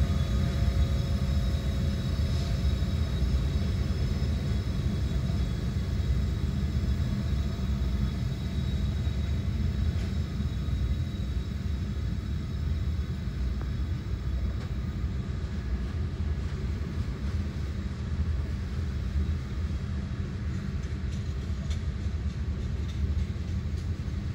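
Slow-moving freight train of covered hopper cars rolling past, a steady low rumble of wheels on rail, heard from inside a car.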